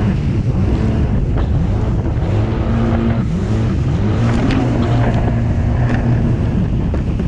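Jet ski engine running at speed, its pitch rising and falling with the throttle. Wind buffets the microphone and spray hisses, with a few knocks as the hull hits the chop.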